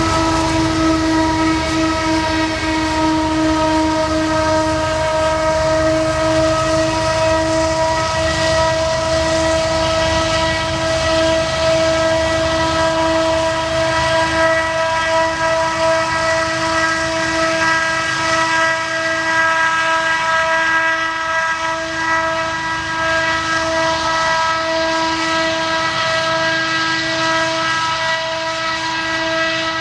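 Freight train of hopper cars rolling through a rail yard, with one steady high-pitched whine held over the rumble the whole time; it eases a little near the end.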